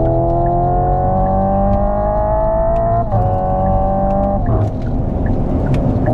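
Hyundai IONIQ 5 N's synthesised engine sound rising in pitch as the electric car accelerates in a low gear. The note drops abruptly about three seconds in, and again near four and a half seconds, as its simulated gearbox shifts up. A low road and tyre rumble runs underneath.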